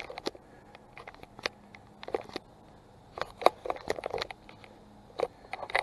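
Scattered light clicks and taps, some in quick little clusters, of hands working on parts in a car's engine bay as pieces are undone.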